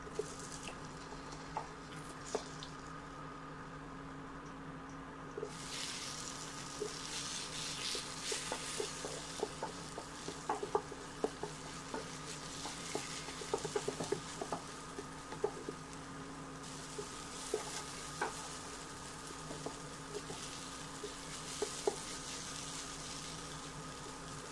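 Eggs and tomato masala sizzling in a nonstick frying pan as a wooden spatula stirs and scrambles them, with scattered clicks of the spatula against the pan. The sizzle grows louder about five seconds in, and the clicks are thickest near the middle.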